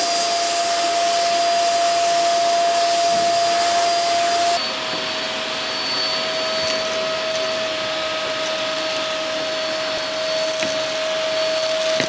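Eureka Forbes Quick Clean DX 1200-watt canister vacuum cleaner running steadily, sucking through its hose and extension wand at a car's floor mat: a steady rushing hiss with a constant whining tone. About four and a half seconds in, the whine steps slightly lower and the sound gets a little quieter.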